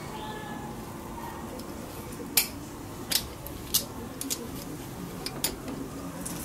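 Locking pliers and a bent metal rod clinking against the jaws of a cast-iron bench vise as the rod is set in place: about six sharp metal clicks, the loudest about two and a half seconds in.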